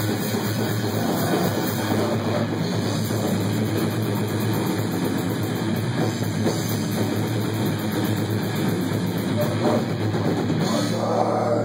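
Death metal band playing live in a small room: distorted electric guitar, bass and a full drum kit with fast cymbal hits, the guitarist growling vocals into the mic at times.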